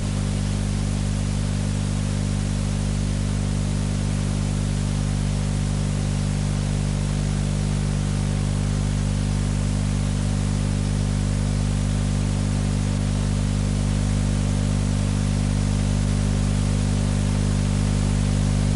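Steady low hum with a hiss over it, unchanging throughout: the noise of an old amateur-television recording's sound channel carrying no programme sound, transferred from one-inch videotape.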